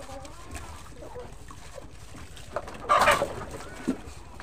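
Chickens clucking, with one loud, harsh squawk about three seconds in. Under it come soft clinks and splashes of plastic cups being washed by hand in basins of soapy water.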